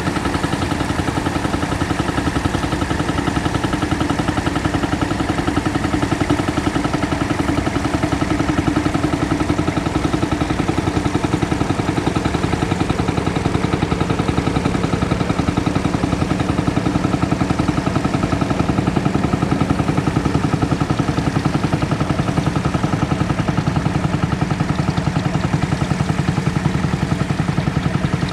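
Massey Ferguson 35X tractor engine running steadily at an even speed.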